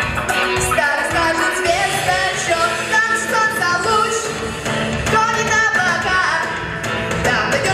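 A boy singing a pop song into a microphone over a pop accompaniment with a steady beat.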